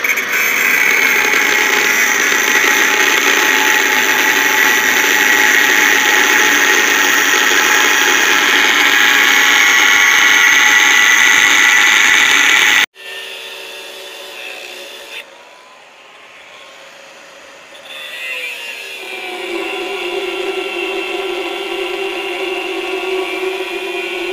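Angle grinder with a cut-off disc cutting lengthwise through a rusty metal pipe: loud, harsh, steady grinding. About halfway through it breaks off suddenly. The grinder then runs more quietly with its pitch shifting, and grows steadier and louder again near the end.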